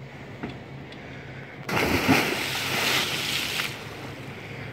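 A person jumping from a deck into lake water: a sudden loud splash about one and a half seconds in, then water churning and settling for about two seconds.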